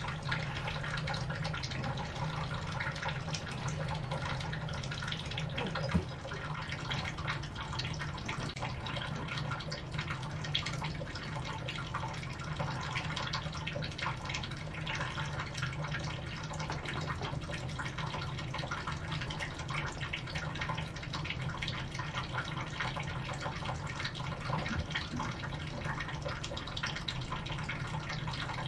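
Steady trickling and dripping of water over a continuous low hum, with one sharp click about six seconds in.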